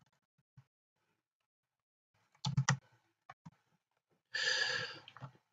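Quiet room with a few clicks, in a short cluster about two and a half seconds in, as the title is typed. Then a breathy exhale close to the microphone, a sigh, lasting under a second.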